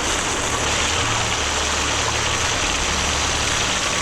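Steady engine running: an even low hum under a broad hiss, with no change in pitch or level.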